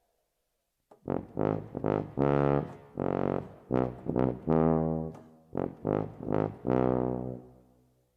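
A low brass instrument playing a short phrase of about a dozen notes, starting about a second in. Most notes are short and a few are held; the last note is held and fades away.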